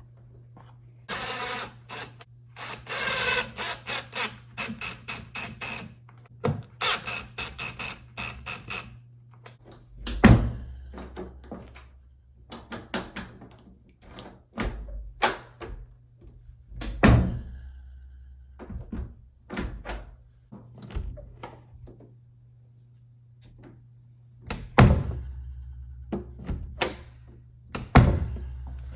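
A new door knob and latch being fitted to a door with a screwdriver. A long run of rapid metallic clicks and rattles is followed by scattered taps and four loud thunks.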